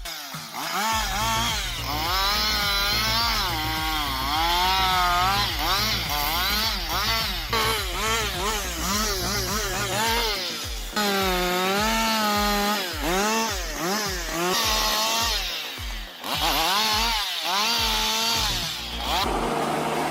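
Husqvarna 560 XP two-stroke chainsaw cutting, its engine note repeatedly rising as it revs and dropping as the chain bites into the wood.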